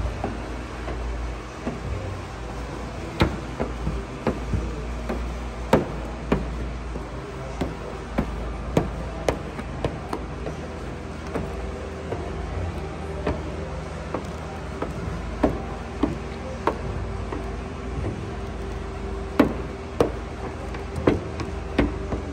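A plastic hand squeegee working wet paint protection film onto a car panel: many sharp, irregular clicks and taps, about one or two a second, over a steady low hum.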